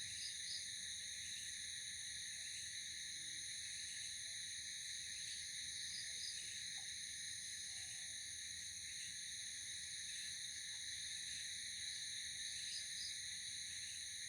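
Night insect chorus of crickets, a steady, unbroken shrill trilling at several high pitches. A short double chirp rises above it three times, about every six seconds.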